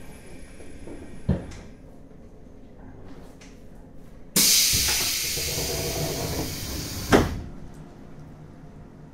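Pneumatic doors of a 485 series train carriage opening at a station stop. A sudden loud hiss of air lasts about three seconds and ends in a hard thud. A single knock comes a little over a second in.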